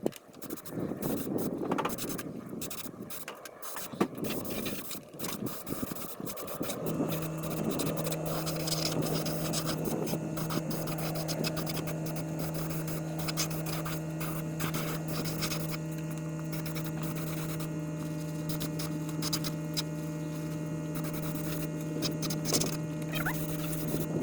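Scattered clicks and knocks, then about a quarter of the way in a motor starts and runs with a steady, unchanging hum.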